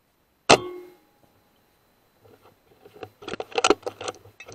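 A sub-12 ft-lb air rifle fires once about half a second in: a sharp crack with a short ringing tail. From about two seconds on a run of irregular clicks and rattles follows, loudest near the end.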